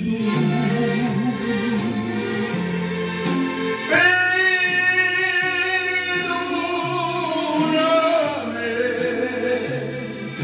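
A man singing a Spanish-language love song into a microphone over an instrumental backing track, holding one long note with vibrato from about four seconds in until near eight seconds.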